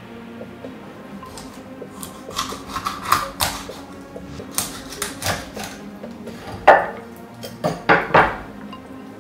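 Cleaver chopping raw quail on a bamboo cutting board: a string of irregular knocks of the blade on the wood, the hardest few near the end.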